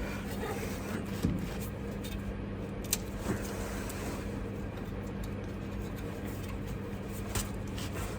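A steady low machine hum, like an engine running, with a few short light knocks and clicks of metal parts being handled.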